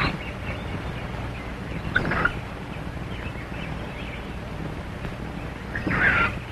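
A chimpanzee giving two short calls, about two seconds and six seconds in, over the steady hiss and hum of an old film soundtrack.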